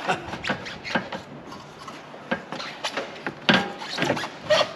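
Hand work on parts: irregular knocks, clicks and scraping as pieces are handled, with a louder knock about three and a half seconds in and another near the end.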